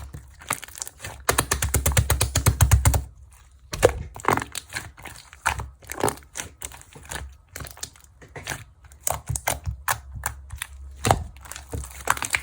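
Close-up handling sounds: crinkling and sharp clicks of small objects, with a fast run of clicks between about one and three seconds in.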